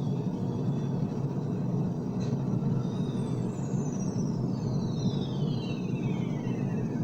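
Steady low rumbling noise on a cassette recording in the gap between songs, with a faint thin whistle gliding steadily down in pitch through the second half.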